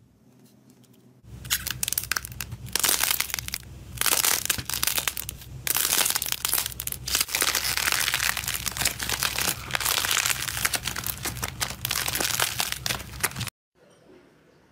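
Hands squeezing and mashing a thick, clay-like slime, making a dense run of crackling and popping that starts about a second in and stops abruptly near the end.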